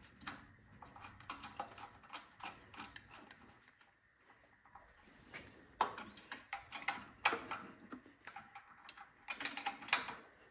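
Faint, irregular clicks and small metal taps of a hand tool tightening the drain bolt at the bottom of the Honda GCV190's carburetor float bowl. They pause briefly about four seconds in, then come back louder and in quicker clusters.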